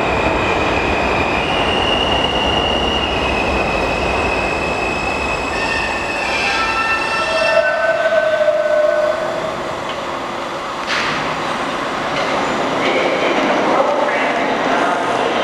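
New York City subway R179 train running into the station on curved track, with a steady rumble and wheels squealing in high, held tones. Around the middle several squeal tones overlap, and there is a sharp click about two-thirds of the way through.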